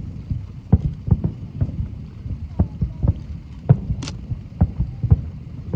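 Aerial fireworks going off in a rapid, irregular run of low booms, several a second, with one sharper crack about four seconds in.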